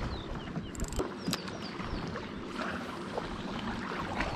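Small waves lapping against the hull of a small boat, with a few light clicks and knocks and some faint short high chirps.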